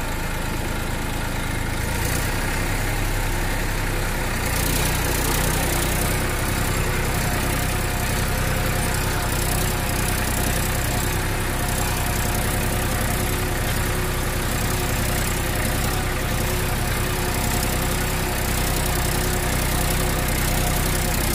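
A motor running steadily, with an even low hum and no change in speed.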